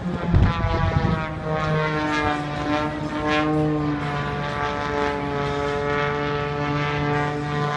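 Small propeller-driven aerobatic plane's piston engine droning through its manoeuvres, the engine note shifting slightly in pitch. Brief low rumbling bumps come in the first second.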